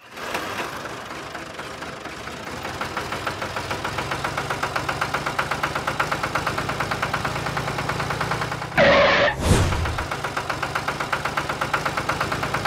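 Diesel tractor engine running with a steady knocking chug of about five beats a second, growing louder a few seconds in. Brief louder sounds break in about nine seconds in and again near the end.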